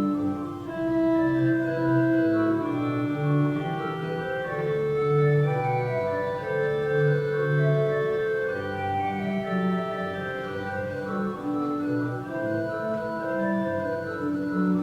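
Organ music: slow, sustained chords and held notes that overlap and change every second or so.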